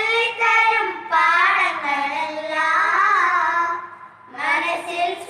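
Children singing a Malayalam Christian devotional song together, unaccompanied, with a short break for breath about four seconds in.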